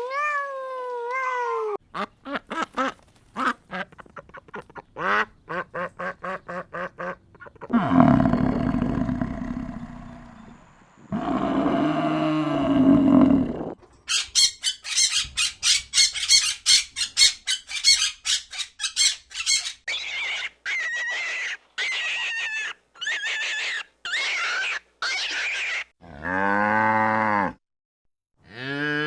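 A succession of farm animal calls, one animal after another: pulsed and rough low calls in the first half, then ducks quacking in quick runs and separate quacks, then a cow mooing near the end.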